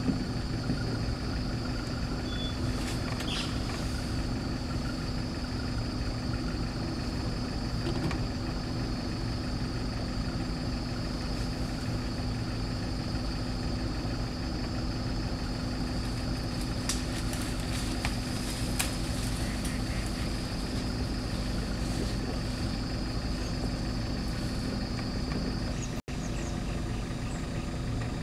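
A vehicle engine idling steadily, an even low hum with a steady high whine above it; the sound drops out for an instant near the end.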